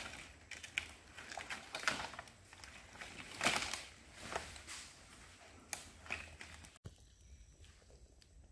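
Footsteps crunching and rustling over fallen nipa palm fronds on mud, several uneven steps. They stop abruptly about seven seconds in, leaving only a faint steady high hum.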